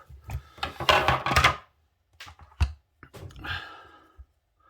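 Clicks and knocks of a heavy ISEO lock being handled: a quick run of rattling clicks in the first second and a half, then a single louder knock a little past the middle.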